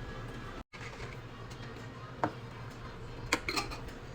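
A few light clinks and knocks of cookware and utensils, one about two seconds in and a small cluster near the end, over a steady low hum.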